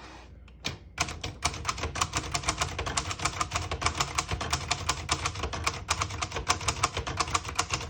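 A 1960 Hermes Rocket manual portable typewriter being typed on: a quick, steady run of keystrokes, the typebars striking the platen, starting about a second in.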